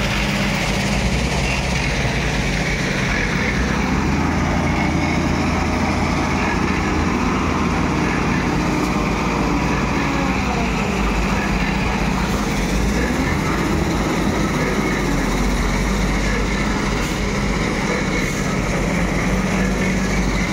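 Hyundai wheel loader's diesel engine running steadily under load as it raises and dumps its bucket. Faint gliding whines in the middle stretch rise and fall in pitch.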